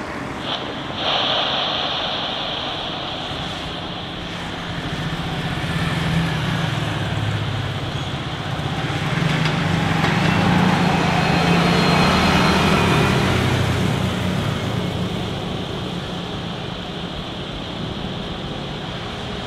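Airbus A330neo's Rolls-Royce Trent 7000 turbofans running at taxi power: a steady high whine over a low rumble that swells about halfway through as the airliner turns to face the listener, then eases off again.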